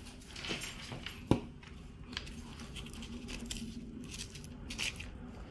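Boning knife worked around the bone inside a lamb leg, with the meat being handled: faint small scrapes and clicks, and one sharper click about a second in.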